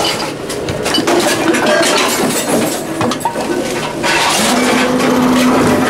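Irregular clatter and knocks, then about four seconds in a steady low motor hum starts up: a Tomra reverse vending machine's drive running.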